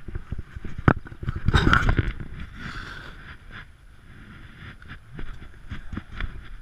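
Plastic kayak hull dragged over beach sand: rough scraping with irregular knocks, loudest in a burst about one and a half seconds in, then quieter.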